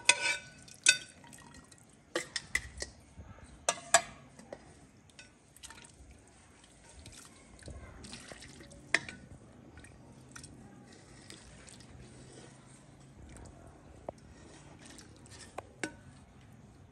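A metal ladle clinking and scraping against a steel cooking pot while meat broth pours and drips onto a steel plate. The sharp clinks come scattered, most of them in the first four seconds, with a few more later on.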